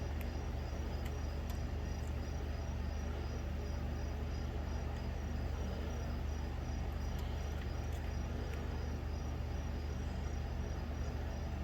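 Small gas golf cart engine running at a steady, even speed, with crickets chirping in a steady rhythm over it.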